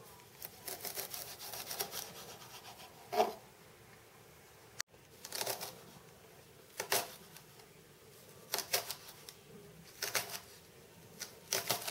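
Kitchen knife cutting spring onions on a chopping board. A quick run of light taps in the first two seconds is followed by single slicing strokes every second or two.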